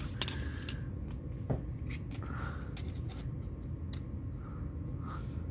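Light scattered clicks and scraping of a plastic slide caliper being handled and closed around a small steel pop rivet, one sharper click about a second and a half in, over a low steady hum.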